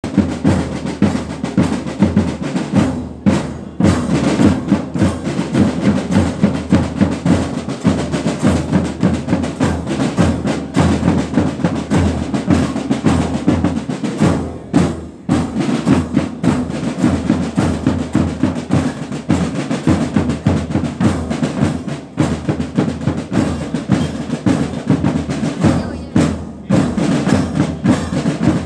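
Marching band drum line playing a steady marching beat on snare drums and bass drums, with short breaks in the beat about 3, 15 and 26 seconds in.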